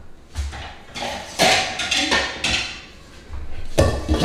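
Metal cooking pots and lids being handled, knocking and clinking against each other and the stovetop: about half a dozen separate knocks, each with a short metallic ring.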